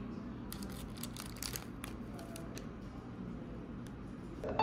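Scattered light clicks and rustling, like small objects or paper being handled, with a cluster of crisp ticks about a second in, over a steady low hum.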